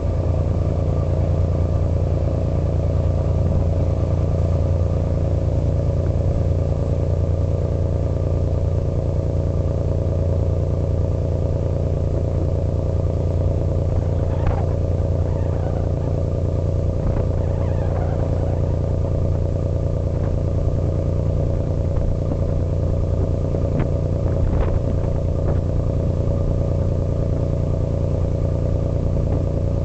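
Engine of a small 20-ton fishing-boat-type car ferry running steadily under way: a constant low drone with a strong hum. A few faint short clinks come through around the middle and again later.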